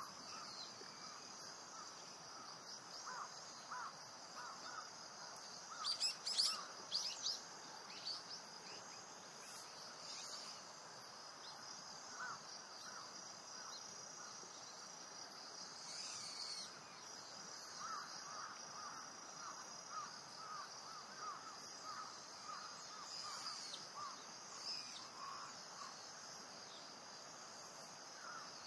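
Natural ambience of steady high insect buzzing with many short bird calls repeating through it, loudest in a brief cluster of sharp calls about six seconds in.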